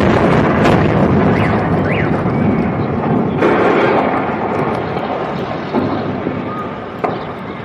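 Explosion at a gas filling station: a sudden loud blast, then a long rumbling roar that slowly fades over several seconds, with a few smaller bangs along the way.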